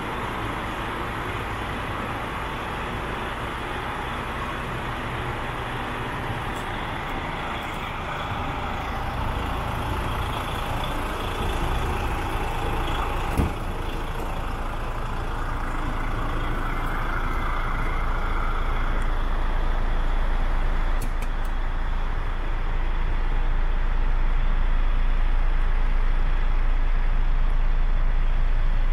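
DAF CF85's Paccar 460 bhp turbo diesel, a six-cylinder, idling steadily as a low hum that grows louder in the second half. A single sharp knock about halfway through.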